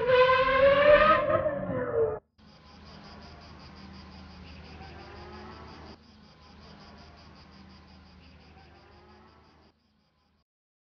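High-revving racing car engine, a steady high pitch that rises slightly and then drops away, cutting off suddenly about two seconds in. After it comes a much quieter stretch of faint noise with a rapid, even ticking, which stops near the end.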